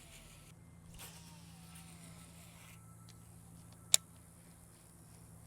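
Swimbait being cast on a fishing rod and reel: a faint falling whine over a steady low hum, then a single sharp click about four seconds in.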